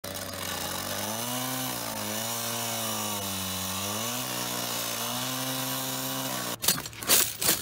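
Gas-powered saw cutting through a payphone's outer shell, its engine pitch sagging and recovering as the blade loads up. About six and a half seconds in the saw stops and a few loud bangs and clatters follow.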